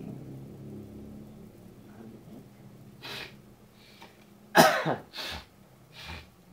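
A person coughing in a run of short bursts, four or five over about three seconds, with the loudest cough about halfway through.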